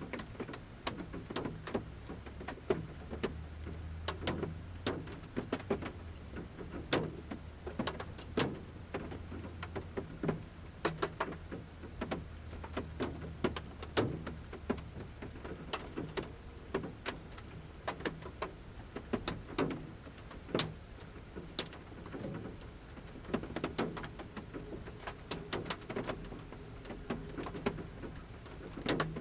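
Large drops falling from the forest canopy onto the roof of a camper van, heard from inside. They land as sharp taps at irregular intervals, over a soft patter of light rain.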